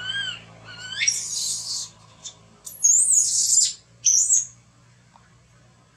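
Baby macaque crying: a few short whimpers, then high-pitched screams in three bouts, the loudest about three seconds in.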